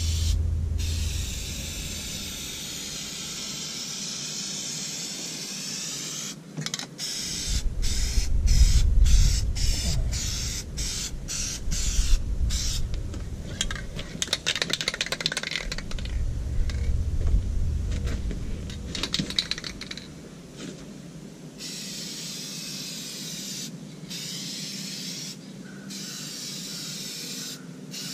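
Aerosol spray can hissing, first in a long spray, then in a run of short bursts, then in longer sprays again near the end. A stretch of clicking and rustling handling noise with a low rumble comes in the middle.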